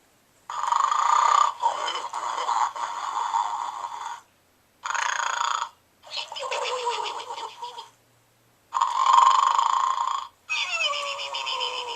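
Gund Arnold the Snoring Pig plush playing its electronic snoring sound: rasping snores repeated several times, split by short silent gaps. Some breaths have a pitch that slides down.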